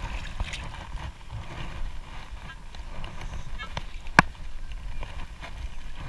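Water sloshing around bare feet working sand loose in shallow water, over a low rumble of wind on the microphone, with one sharp click about four seconds in.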